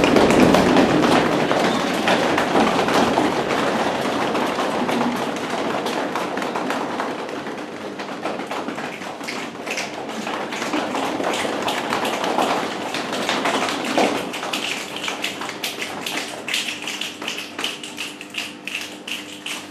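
A group of people on a hard floor shuffling their feet, then making quick tapping sounds with their hands. The tapping grows into a steady rhythm of about two taps a second near the end.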